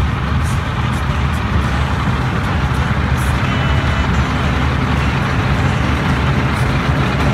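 Heavy diesel farm machinery running steadily, a constant engine drone with a dense mechanical rush over it.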